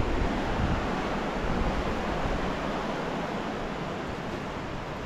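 Steady rushing of the Shumak, a fast mountain river, with a low wind rumble on the microphone in the first second or so. The rush grows slightly fainter toward the end.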